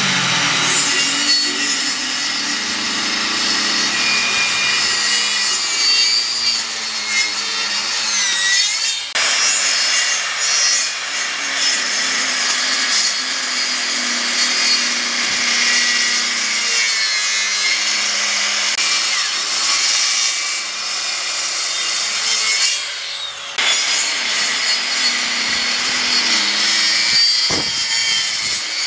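Makita circular saw running and cutting a series of shallow parallel grooves across the end grain of a tree stump. It makes a steady, loud, high-pitched cutting noise, broken by two short pauses, one about a third of the way through and one near the end.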